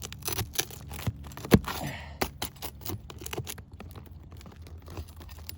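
Brittle asphalt roof shingle being worked loose around its nails: scattered sharp clicks, cracks and scrapes, the loudest about a second and a half in. The shingle is so brittle that it breaks and lets the nail heads pop through.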